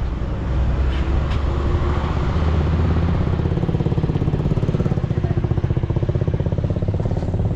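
A motor vehicle's engine running close by, with a fast, even firing pulse that becomes plainer in the second half.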